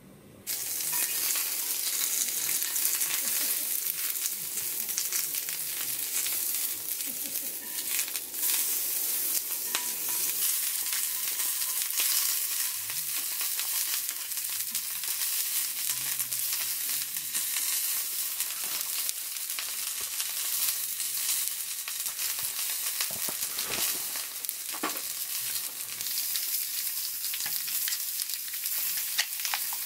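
Slices of meat frying in a hot skillet over a gas burner: a steady, hissing sizzle that starts suddenly about half a second in, with a few sharp clicks along the way.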